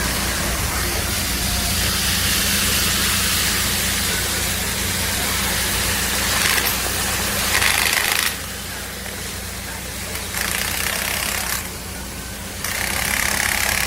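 Heavy work noise at a water main repair: a loud, steady hiss over a constant engine-like hum. The hiss cuts out sharply twice in the second half, for about two seconds and then about one.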